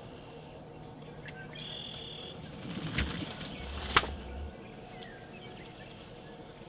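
Wild birds chirping, with one held high note about two seconds in. A few sharp clicks follow about three seconds in, the loudest about four seconds in, over a short low rumble.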